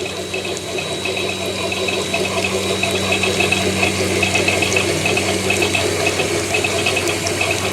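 Pumped water running as a thin sheet down a small garden-railway stream, a steady splashing flow.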